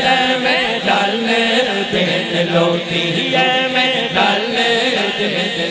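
Male voice singing a Punjabi naat, drawing out a long, wavering, ornamented melodic line over a steady low drone.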